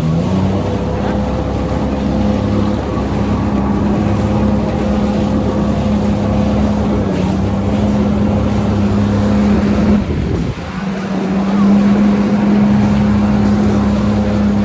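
Jet ski engine running steadily at speed with a steady hum, easing off briefly about ten seconds in and then picking up again, with wind on the microphone.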